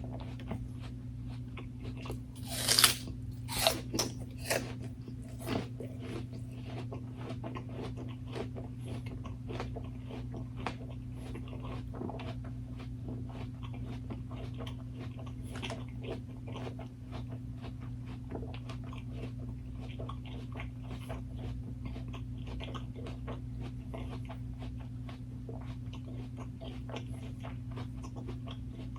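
Close-miked eating: a few loud crunchy bites into firm food about three seconds in, then steady chewing with small crunches and wet mouth clicks.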